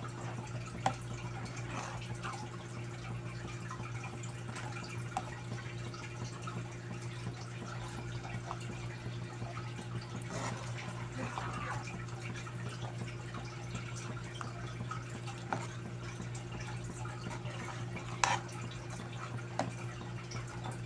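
Metal ladle stirring thick champorado in a pot: soft wet plops and scrapes from the porridge, with a few sharper clinks of the ladle against the pot, one about a second in and one near the end. A steady low hum runs underneath.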